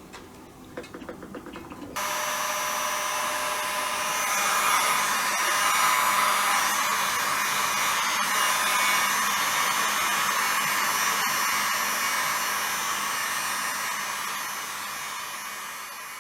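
Hot-air blower switched on about two seconds in and running steadily, aimed at an oscillator crystal to test whether heat makes it start oscillating; it fades away near the end.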